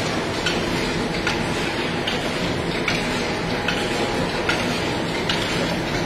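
Kohlu oil-press machines running: a steady mechanical clatter, with a sharp click repeating a little more than once a second.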